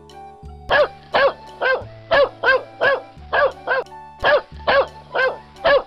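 A dog barking in a quick, repeated series of short barks, about two to three a second, starting just under a second in, over soft background music.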